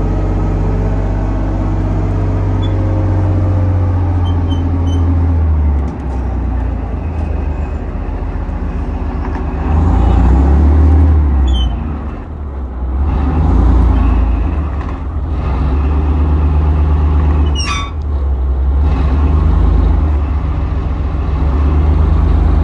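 Chieftain tank's Leyland L60 two-stroke opposed-piston multi-fuel engine running as the tank is manoeuvred, revving up and falling back several times. A brief high squeal comes in about three quarters of the way through.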